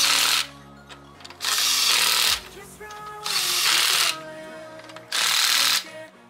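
Cordless impact wrench running lug nuts onto a car wheel in four short bursts, with pauses between them as it moves from nut to nut.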